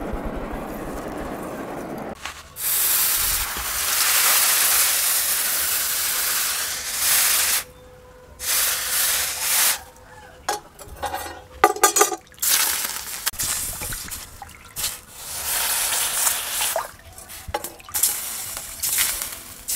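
Red-hot spring-steel knife blade being quenched in a trough of water: loud steam hisses and sizzles in several long stretches as the blade is plunged in and lifted out again and again. Before it goes in there is a couple of seconds of lower rushing noise, and in the middle there are a few brief metallic clinks.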